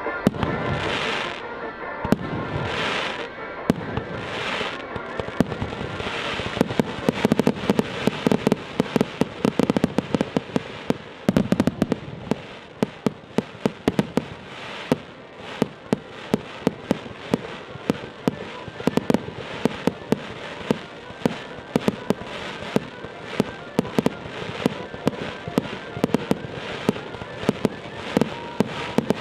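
Fireworks display: three hissing bursts in the first few seconds, then a rapid barrage of sharp bangs and crackles, several a second, that keeps going.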